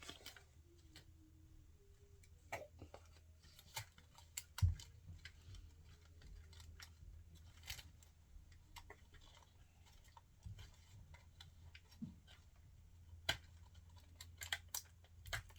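Scattered light clicks and taps of toy packaging and small plastic accessories being handled, with one louder knock about four and a half seconds in, over a low steady hum.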